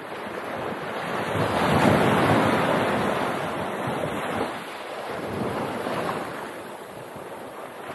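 Sea surf washing up the sand, swelling loudest about two seconds in and again around six seconds, with wind buffeting the microphone.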